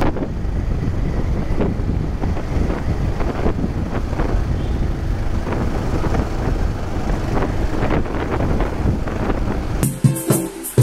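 Wind buffeting the microphone on a moving motorcycle, an even rumble with the engine under it. Near the end it cuts abruptly to rhythmic ukulele strumming.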